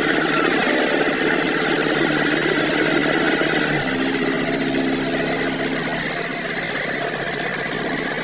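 Mahindra Yuvo Tech 275 DI tractor's three-cylinder diesel engine running under load as it drags a loaded trolley through deep mud, the engine note changing about four seconds in.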